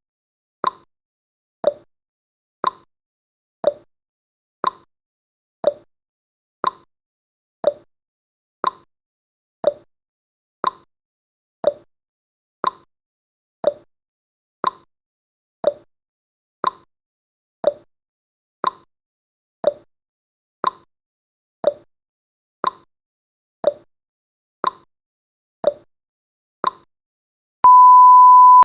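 Countdown timer sound effect: short clock-like ticks, one a second, then a steady one-second beep near the end as the count runs out.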